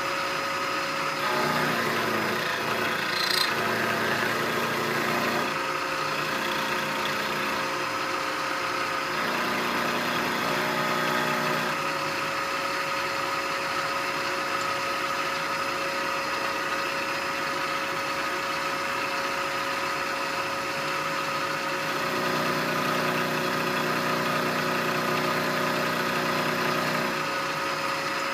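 Vertical milling machine running with a steady spindle whine while its end mill cuts the end of a 4140 steel tool blank held in a vise. The cutting noise grows louder in three stretches as the cut is fed along.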